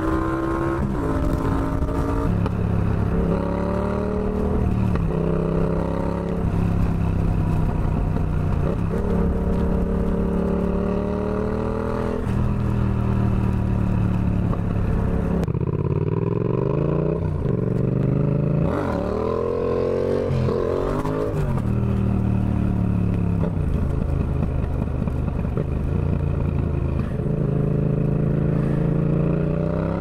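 Yamaha XSR700's parallel-twin engine heard from the rider's seat while riding. In the first half it runs at fairly steady revs, its pitch dipping and recovering every few seconds. After an abrupt change about halfway it revs up in several quick rising sweeps through the gears, then settles to a steady cruise.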